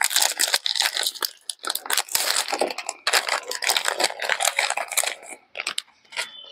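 A Ziggy donut cake's plastic wrapper being torn open and crumpled by hand: a dense run of crinkling and crackling that dies down about five and a half seconds in.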